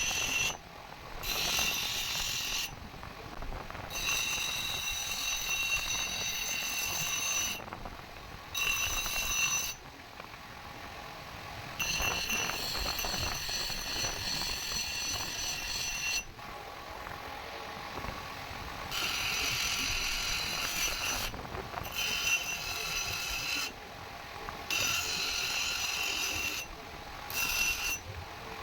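Metal being struck rapidly and ringing at a few fixed pitches, in bursts of one to four seconds with short pauses between.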